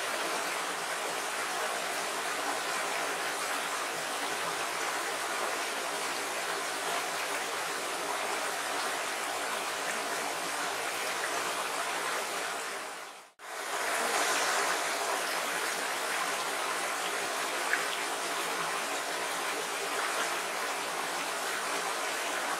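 Shallow, rocky stream rushing steadily over stones. About halfway through, the sound fades out briefly and then returns slightly louder.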